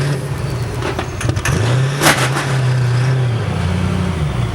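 Diesel engine running loud and steady, its pitch dipping and rising about a second and a half in and stepping up near the end, with a few sharp cracks, the loudest about two seconds in.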